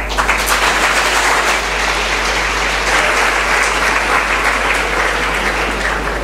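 Audience applauding, breaking out right at the start and easing off a little near the end, over a steady low hum.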